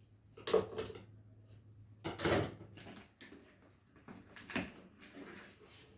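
Handling and opening a laptop's box and packaging: a few short rustles and scrapes, the loudest about two seconds in.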